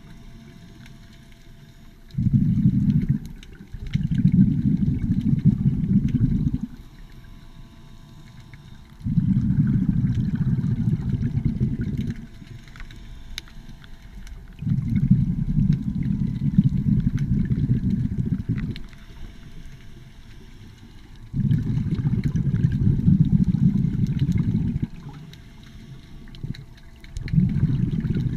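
A scuba diver's exhaled bubbles from the regulator, a low rumbling rush of air about every four to six seconds, six breaths in all, with quieter inhales between. A faint steady whine from the underwater scooter's motor runs beneath.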